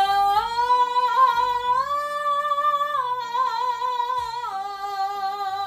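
A woman singing one long open vowel in full chest voice, stepping up twice to a high D5 and then back down. It is a range-extending exercise for an alto.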